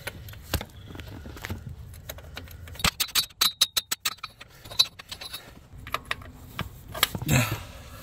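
Metal clicking and rattling as a stuck deep socket is worked loose from a newly fitted transmission neutral safety switch, with a quick run of about eight clicks about three seconds in.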